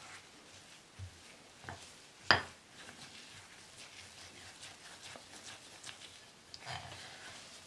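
Spatula mixing a stiff flour-and-butter dough in a glass bowl, with one sharp knock of the spatula against the glass a little past two seconds in and a few lighter taps around it.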